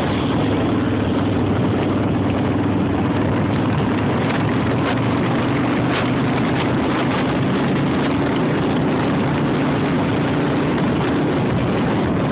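Car driving at speed: steady road and wind noise with the low hum of its engine. The engine hum fades somewhat a couple of seconds in.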